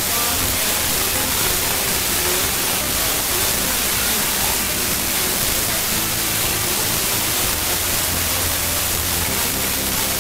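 FM radio receiver hiss on a weak, distant station at 93.2 MHz: a steady wash of static with faint broadcast audio showing through underneath. This is a barely readable signal arriving by sporadic-E propagation.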